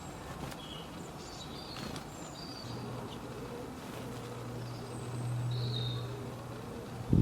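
A flying insect buzzing close by: a low steady hum that starts a few seconds in, swells and then eases off. Small birds give short high chirps throughout, and a sharp low thump comes right at the end.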